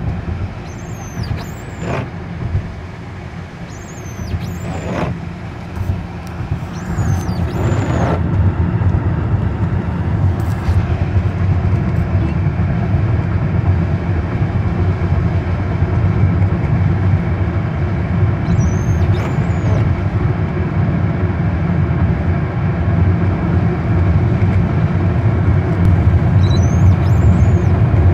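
Nissan QX 3.0-litre V6 engine and road noise heard from inside the cabin at highway speed, growing louder from about six seconds in as the car accelerates.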